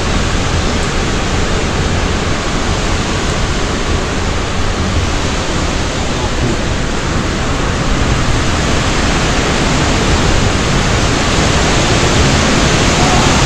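Strong monsoon wind rushing through trees and buffeting the microphone: a loud, steady roar with a rumbling low end, growing a little stronger in the second half.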